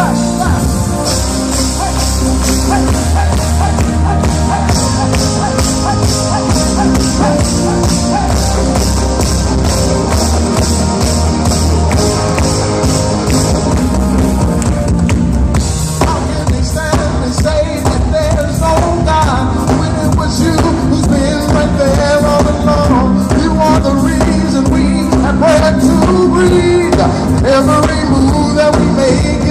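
Gospel choir singing an upbeat song over band accompaniment with a steady drum beat.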